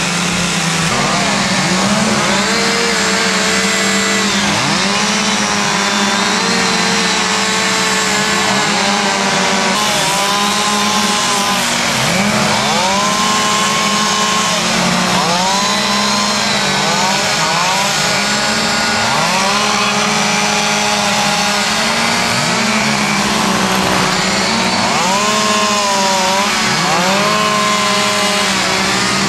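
Several two-stroke chainsaws running at once, their engines revving up and down in repeated swoops as they cut into wood, over a steady drone.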